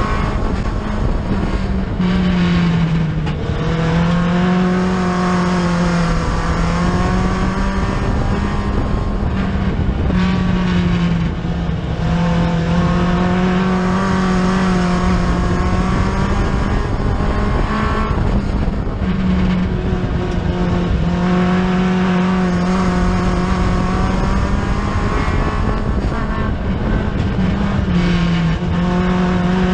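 A 4-cylinder dirt track race car engine running hard at racing speed, heard from inside the cockpit. Its pitch dips and climbs back every few seconds as the throttle comes off and back on.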